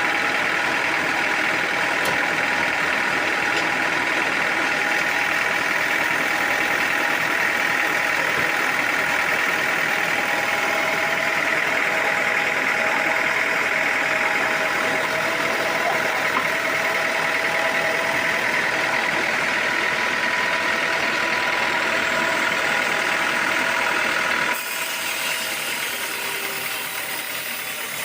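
Sawmill machinery running steadily, a continuous mechanical drone with a faint whining tone. It gives way abruptly to a quieter machine sound near the end.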